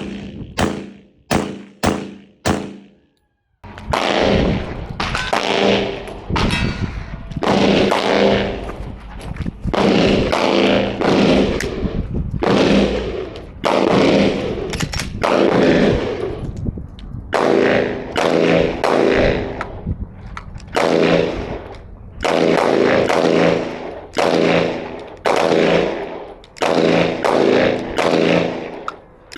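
Gunfire at a shooting range: about six separate shots in the first few seconds, then after a brief break, loud strings of rapid shots that ring on after each burst.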